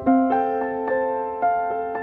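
Background piano music: a slow melody of single struck notes, each ringing on and fading as the next one sounds.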